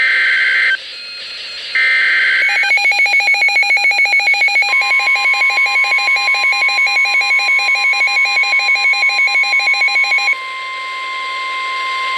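Weather radio going off for an Emergency Alert System warning. Two short bursts of the SAME digital header screech come first, one at the start and one about two seconds in. Then a rapid pulsing alert beep at about five beeps a second, with the steady 1050 Hz NWS warning tone coming in under it about four and a half seconds in and holding on alone after the beeping stops about ten seconds in.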